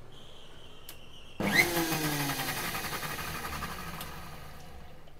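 Sujata mixer grinder with a steel jar pulsed briefly, blending egg and oil into mayonnaise. The motor starts suddenly about a second and a half in, then winds down with falling pitch over the next couple of seconds once it is switched off.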